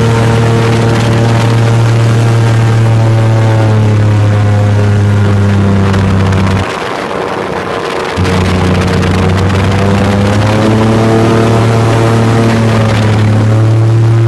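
Small V8-powered airboat's engine and air propeller running at cruising speed: a loud, steady drone with a deep hum. The pitch shifts slightly a few times, and about halfway through the deep hum drops out for a second and a half before coming back.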